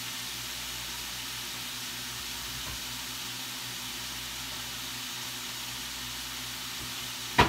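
Steady, even hiss from a gas stove burner heating an empty pan, with a faint low hum under it. A single sharp knock just before the end.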